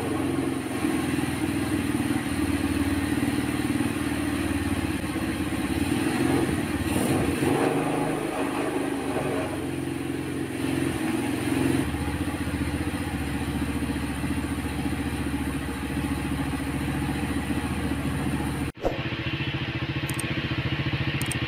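Honda Astrea Grand's rebuilt 115cc single-cylinder four-stroke engine running through its stock muffler, idling with a few light throttle blips. The sound drops out for an instant near the end, then the engine carries on.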